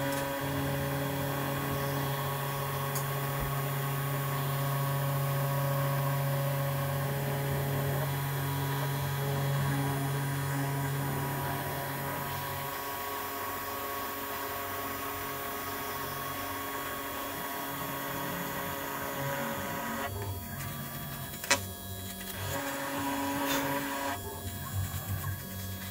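A CNC machine running a PCB milling test, its motors giving steady humming tones. The tones shift in pitch about halfway through, then drop out briefly twice near the end, with one sharp click between the dropouts.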